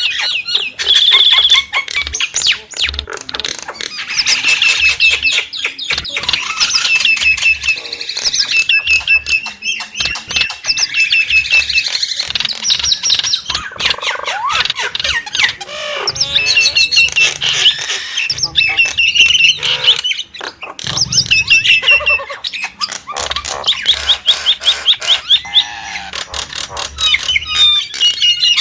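Nias hill myna calling: a dense, nearly unbroken stream of rapid chattering clicks, whistled notes and squawks.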